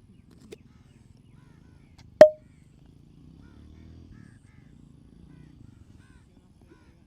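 One loud, sharp crack about two seconds into a massage, with a brief ring, and a fainter click shortly before it.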